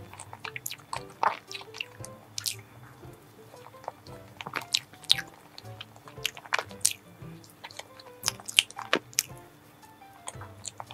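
Close-up chewing of soft chocolate mousse cake: wet, squishy mouth sounds with many short sharp clicks and smacks throughout, over soft background music.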